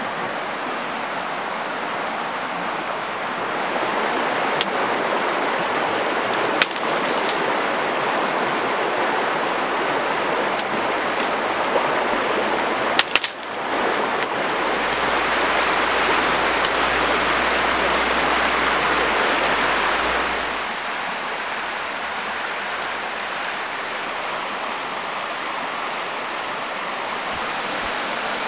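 Shallow river rapids rushing over rocks in a steady wash of noise. The water is louder for about six seconds midway, and a few sharp snaps come in the first half.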